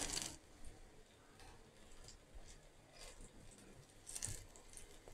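Pakoras deep-frying in hot oil: faint sizzling with scattered crackles and pops, the loudest just at the start as a dollop of batter is dropped into the oil and again about four seconds in.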